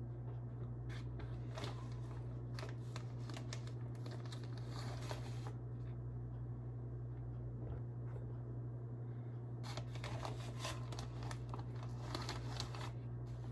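Soft scraping and rustling of a measuring cup scooping flour from a bag and tipping it into a mixing bowl, in two spells, over a steady low hum.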